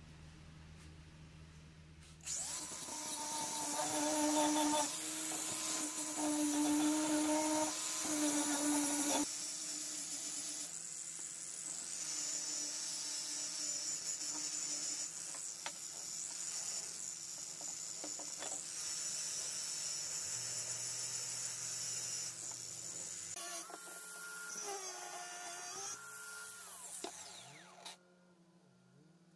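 Angle grinder running with its abrasive disc grinding the cut metal edge of a piece of an old frying pan. It is a high-pitched whine that starts about two seconds in, shifts in pitch as the work is pressed on, and stops near the end.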